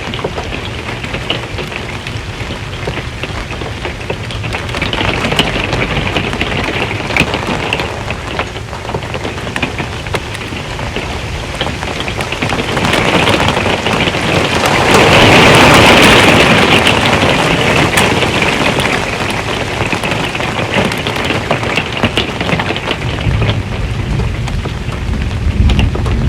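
Rain drumming on an RV's metal roof, a steady patter with sharp ticks of single drops; it swells to its loudest about halfway through, and a low thunder rumble builds near the end.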